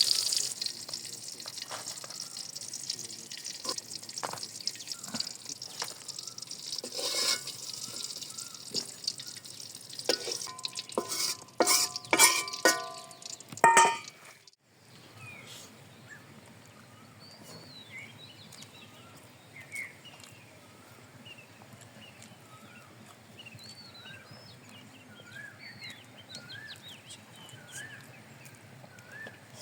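Food sizzling in a pot as it is stirred, with scraping clicks and a few ringing clinks of a metal utensil against the pot. About halfway through the sound cuts to faint birdsong: repeated short chirps.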